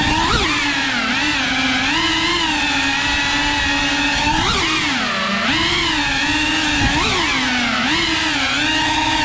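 3.5-inch cinewhoop FPV drone's brushless motors and propellers whining, the pitch swooping up and down as the throttle changes, with quick sharp surges about half a second, four and a half and seven seconds in.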